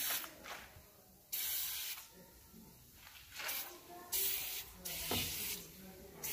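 Engine degreaser being sprayed onto a foam-covered engine bay: a hiss that comes in several short bursts with pauses between them.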